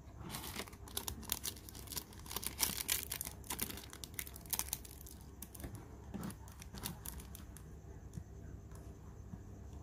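Handling noise: a dense run of small clicks, taps and rustles as a Zippo lighter is handled, thinning out after about five seconds.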